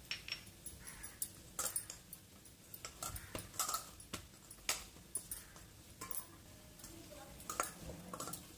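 Hands kneading and smoothing oiled maida dough for bhature in a stainless steel bowl: soft, sticky squelches and slaps of the dough, with irregular light clicks and taps against the steel bowl.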